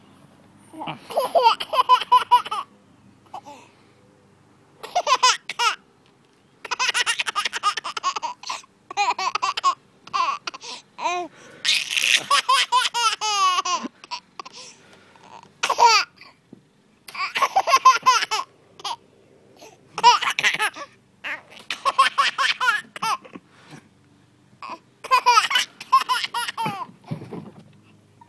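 A baby giggling in repeated bursts of laughter with short pauses between them; one longer laugh near the middle slides up and down in pitch.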